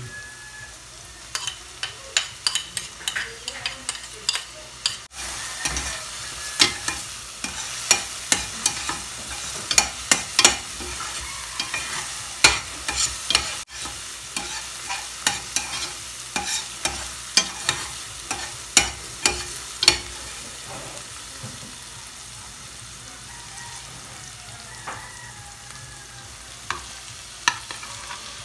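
Chopped onion and tomato sizzling in a stainless steel pan, with a metal slotted spatula scraping and clacking against the pan as they are stirred. The clacking comes thick for about the first twenty seconds, then the sizzle carries on mostly alone, with a few more scrapes near the end.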